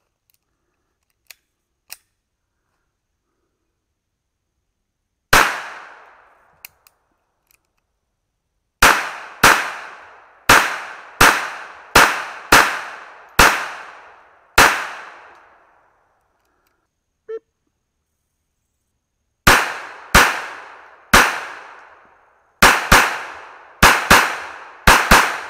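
A .22 semi-automatic pistol firing, each shot a sharp crack with a short ringing tail. A single shot about five seconds in is followed by a string of eight shots at roughly one a second. After a pause comes a faster string of about nine shots near the end, some in quick pairs. Faint clicks of gun handling fall between.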